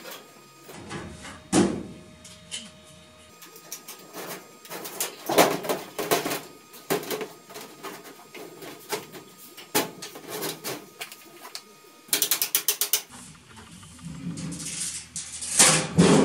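Galvanized sheet-metal ductwork being fitted by hand: irregular clanks, knocks and scraping as the duct pieces are wiggled and slid together, with a quick run of rattling clicks about twelve seconds in. The loudest knocks come near the end as a long trunk section is lifted into place.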